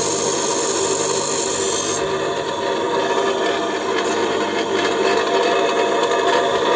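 Bench grinder running, with a high-speed-steel lathe tool bit ground against the spinning wheel. The hiss of the grinding stops sharply about two seconds in as the bit is taken off, and the grinder's motor and wheel keep running steadily.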